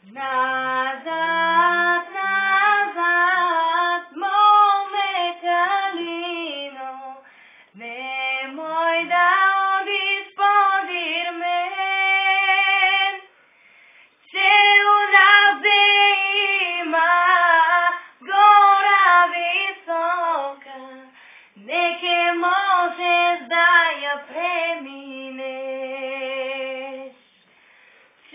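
A young woman singing solo without accompaniment, in phrases broken by short pauses for breath, ending on a long steady held note.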